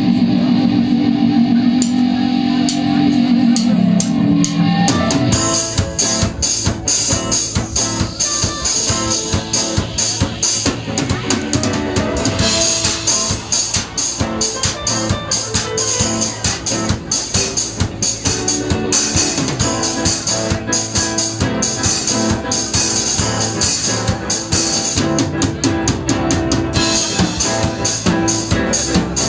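Live band of drum kit, Yamaha keyboard and electric guitar playing. A held low chord opens, and the drum kit comes in about five seconds in with a fast, driving beat and bright cymbals.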